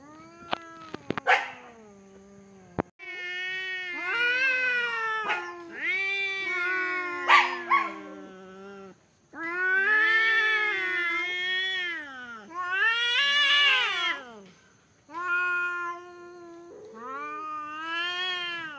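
Two cats in a face-to-face standoff, yowling: about five long, wavering caterwauls that rise and fall in pitch, the warning calls of a cat confrontation. A few sharp clicks come in the first couple of seconds.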